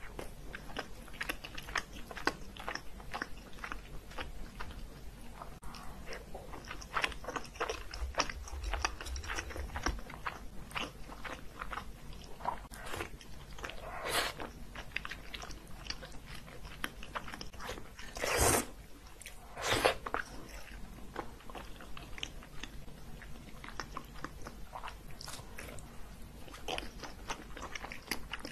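A person eating close to the microphone, chewing food in a creamy sauce with many small clicking mouth sounds. A few louder, longer eating sounds come past the middle.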